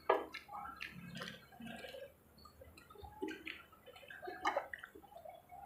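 Close-up mukbang eating sounds: wet chewing and lip smacking on fried chicken, a run of short moist clicks, with a sip from a glass of soft drink about four seconds in.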